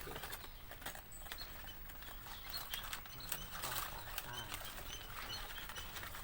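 Small cage birds chirping in an aviary: many short, high chirps scattered through, amid frequent sharp clicks and rustling.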